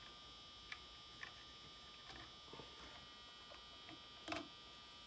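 Near silence filled by the steady electrical buzz of fluorescent shop lights, with a few faint small clicks of handling, the loudest about four seconds in.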